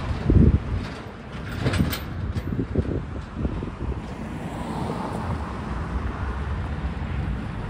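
A heavy truck drives over a railroad grade crossing: a loud thump about half a second in as its wheels hit the rails, then a few lighter knocks and clanks over the next couple of seconds. After that comes the steady sound of road traffic as a car passes.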